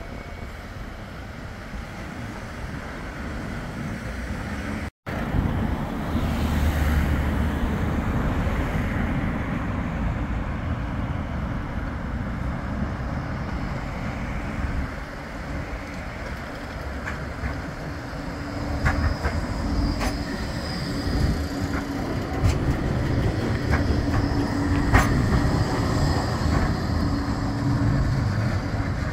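Bombardier Flexity 2 tram running along street track as it approaches and passes, a steady low rumble with a faint low hum. In the second half come several sharp clicks, typical of the wheels running over the rails.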